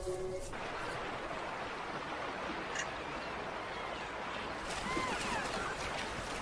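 Steady rush of river water with splashing as a herd of elk runs through a shallow river.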